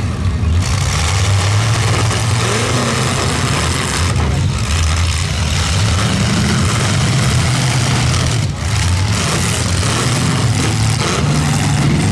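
Several full-size demolition derby cars' engines running and revving together, rising and falling in pitch.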